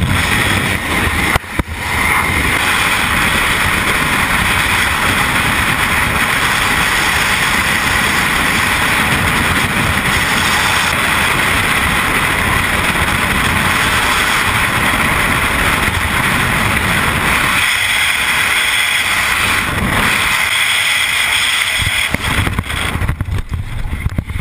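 Loud, steady rush of freefall wind blasting over a skydiver's helmet-camera microphone. It dips briefly about a second and a half in, and its low end thins out for a few seconds near the end.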